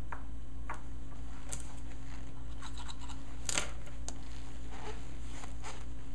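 Faint scrapes and light ticks of hands pressing and piecing crescent-roll dough scraps together on a countertop, the sharpest tick about three and a half seconds in, over a steady low hum.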